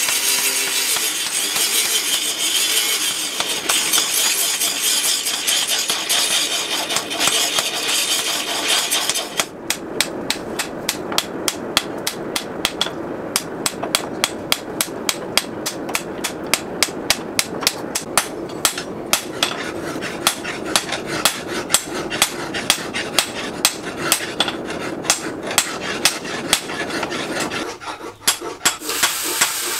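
A charcoal forge fire with forced air gives a steady rushing noise. About a third of the way in it gives way to a long, even series of sharp metal taps, about two a second, like light hammering.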